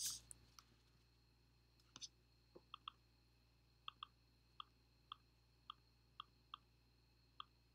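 Faint, irregular clicks of a computer mouse and keyboard, some coming in quick pairs, over near silence.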